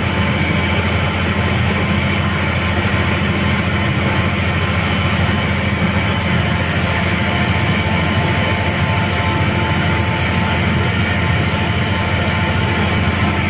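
Olive oil mill machinery running steadily: a constant low hum with an even mechanical hiss over it, unchanging throughout.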